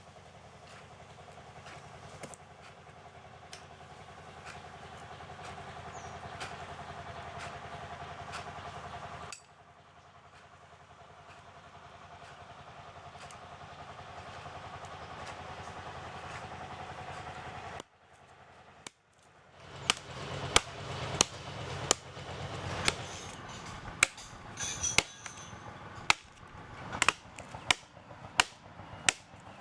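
Digging by hand in soil with a pick and machete: steady scraping of dirt for the first two-thirds, then a run of sharp, irregular chopping strikes.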